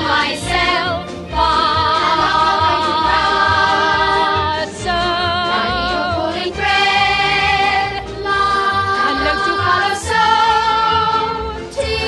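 Background music: several voices singing together in long held notes with vibrato, over instrumental accompaniment, the notes changing every second or two.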